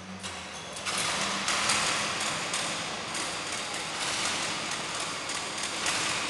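Several go-kart engines running on the grid, a loud rattly clatter that jumps up about a second in and holds.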